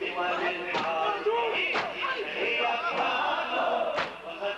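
A male reciter chanting a Muharram lament (latmiya). Over it, a crowd of mourners strikes their chests in unison, a sharp beat about once a second.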